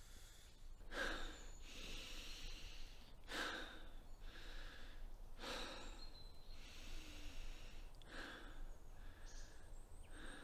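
A man breathing hard through his open mouth, one loud breath about every two seconds.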